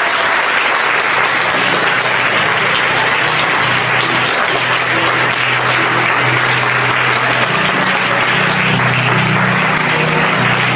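Audience applauding steadily at a curtain call, with low steady music notes coming in underneath after a second or two and growing stronger towards the end.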